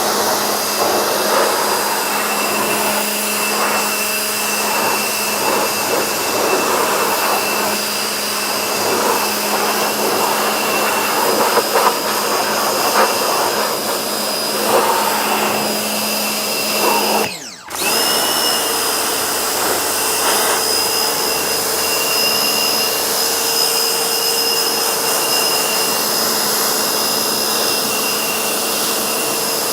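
Vacuum cleaner running with a steady high whine, its sound flickering as it sucks up dirt. About halfway through it drops out for a moment and comes back at a slightly different pitch.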